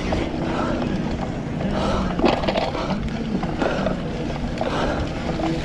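Cyclocross bike rolling over rough race-course ground: a steady rush of wind and rolling noise with irregular rattles and knocks from the bike.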